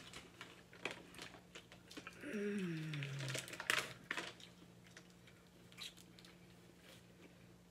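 Eating sounds of a shellfish meal: scattered clicks and crackles of boiled shrimp and crab shells being peeled and handled. About two seconds in there is a short falling "mm" hum.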